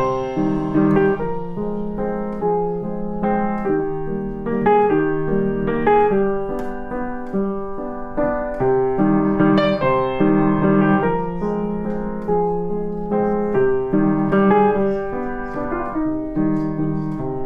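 Background music: solo piano playing a steady stream of notes.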